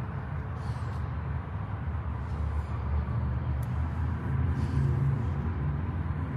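A motor vehicle's engine running at idle: a steady low rumble that swells a little about halfway through.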